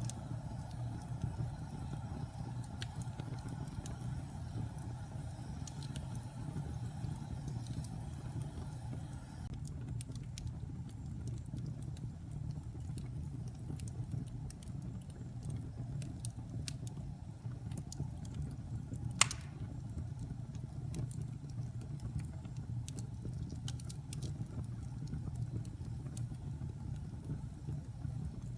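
Wood fire burning in a fireplace: a steady low rumble of flames with scattered small crackles, and one sharp pop about two-thirds of the way through.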